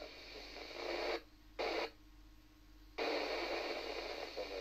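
FM receiver hiss from a Yaesu amateur radio tuned to the ISS downlink on 143.625 MHz, heard between transmissions. The hiss cuts out abruptly about a second in, returns for a short burst, goes quiet, and comes back suddenly about three seconds in.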